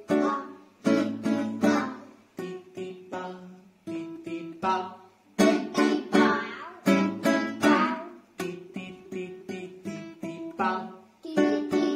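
Acoustic guitar strummed as a rhythmic accompaniment: short chord strokes in a repeating pattern, separated by brief pauses.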